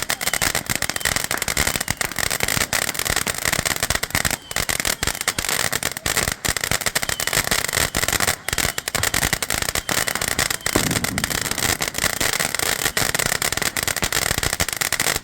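Girl's Best Friend firework fountain burning with dense, continuous crackling over a steady hiss.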